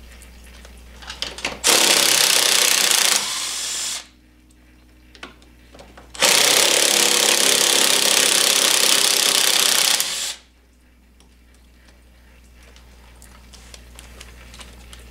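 Cordless drill spinning a socket on a long extension to back out a bolt, in two runs: a short one of about two seconds, then a longer steady one of about four seconds.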